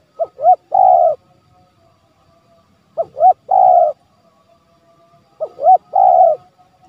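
Spotted dove cooing: three call phrases about two and a half seconds apart, each two short notes followed by a longer held coo.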